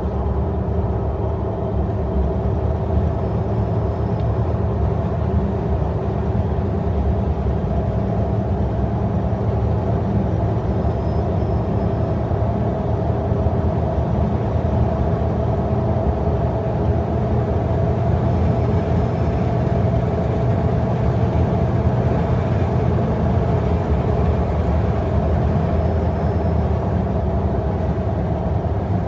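Jeep driving along at steady speed, heard from inside the cabin: a continuous drone of engine and tyre noise with a low rumble and a faint steady hum.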